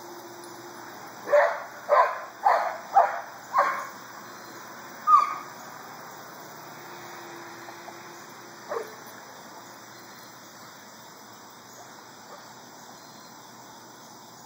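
Dog barking: a quick run of five loud barks about two a second, then a single bark a second or so later and a fainter one near the middle.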